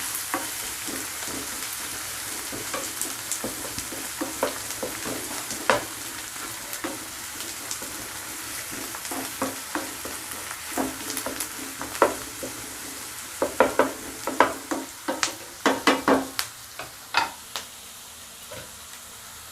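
Chopped onions sizzling as they fry in a pan, being stirred with a spatula that clicks and knocks against the pan, the knocks coming thickest in the second half.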